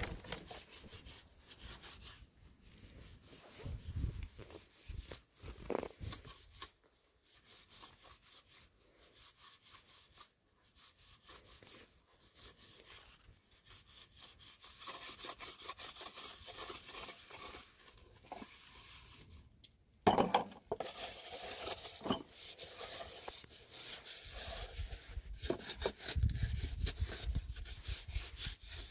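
Irregular scraping and rubbing strokes of a hand tool working on wood, with a louder bout of strokes starting about two-thirds of the way in.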